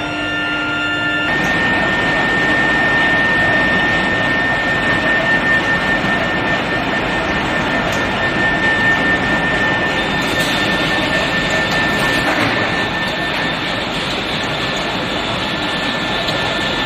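Steady industrial roar of a steel bar induction heating and hot rolling line in operation, with a steady high-pitched whine running through it.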